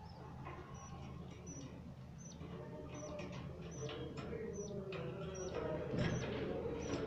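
Budgerigars chirping in a nest box: many short, high chirps, several a second, over a low steady hum, getting a little louder near the end.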